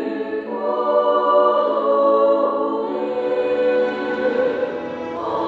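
Choral music: voices singing slow, long-held chords that change every second or two.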